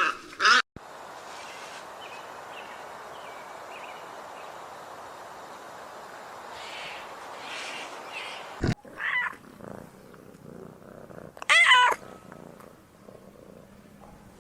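Animal calls: a loud wavering call ending just at the start, a short high call about nine seconds in, and another loud wavering call about twelve seconds in, with a steady rough, purr-like sound between them.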